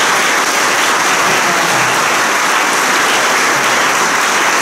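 Congregation applauding, a dense, steady clapping.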